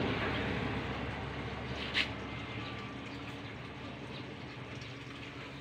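A motor vehicle's engine running and slowly fading away, with one short sharp click about two seconds in.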